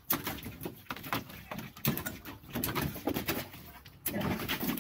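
Water splashing and spattering as a large dog paws at a spurting sprinkler pad in a plastic kiddie pool, in quick irregular splashes.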